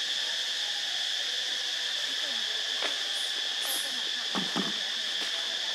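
Steady, high-pitched chorus of insects buzzing, with a couple of brief soft knocks or rustles a little past the middle.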